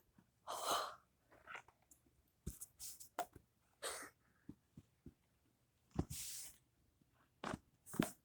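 Fidget toys being handled and slid aside across a surface: scattered small clicks and pops, with a few short rustling bursts, the strongest about half a second in and about six seconds in.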